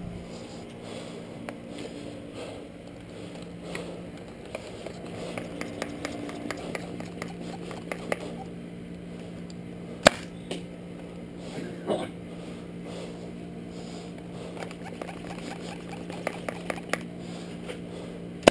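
Scattered clicks and knocks from Nerf blasters being handled and fired, with one sharp crack about ten seconds in, over a steady low hum.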